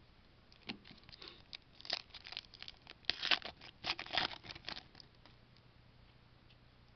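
A 2009 Upper Deck Spectrum baseball card pack wrapper being torn open and crinkled: a run of short crinkling, tearing noises, loudest about three to four and a half seconds in.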